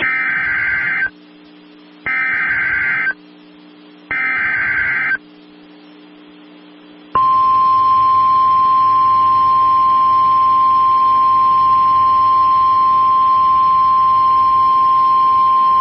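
Emergency Alert System SAME header: three one-second bursts of warbling digital data tones about a second apart. About seven seconds in, the steady 1050 Hz NOAA Weather Radio attention tone begins, announcing a tornado warning.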